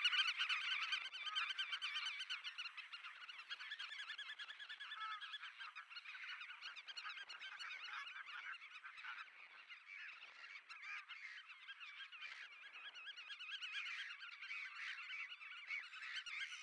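Black-tailed godwits calling: many fast, overlapping nasal call notes in a continuous chatter. It is loudest at first, thins out in the middle and swells again near the end.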